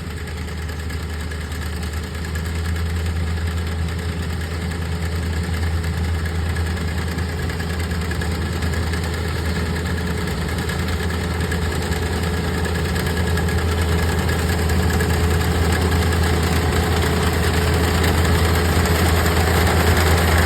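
Kubota ER467 combine harvester's diesel engine and threshing machinery running steadily, growing gradually louder.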